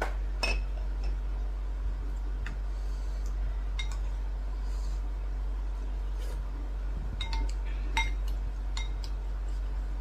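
Eating utensil clinking against a dish while eating soup: several short, light clinks with a brief ring, spread irregularly, the sharpest about eight seconds in, over a steady low hum.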